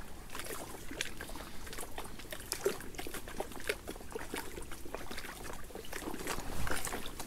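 Lake water lapping and trickling at the bank, with scattered light clicks and ticks.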